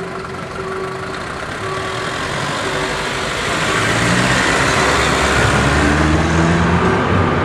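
Wismar railcar running along the narrow-gauge track past close by, its engine running with a steady low note and its wheels rolling on the rails. The sound grows louder from about halfway through as it draws alongside.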